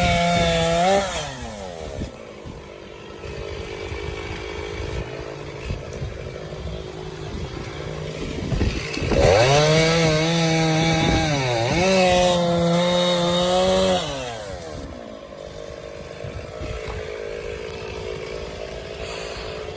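Stihl MS460 two-stroke chainsaw bucking elm logs. It runs at full throttle, drops to idle about a second in, revs up again for a cut lasting about five seconds from around nine seconds in, then falls back to idle.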